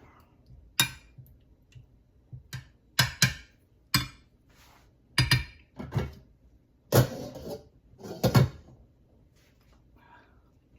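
Kitchen utensils and dishes handled on a counter: about eight separate clinks and knocks, with the longest scraping clatters about seven and eight seconds in.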